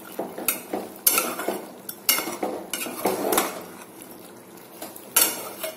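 A metal spoon scraping and clinking against the inside of a metal pressure cooker as boiled mutton pieces are stirred with chilli powder, in irregular strokes that ease off about four seconds in and resume near the end.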